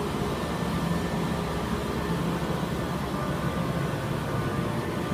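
Steady mechanical drone over hiss, with a constant low hum and faint steady higher tones.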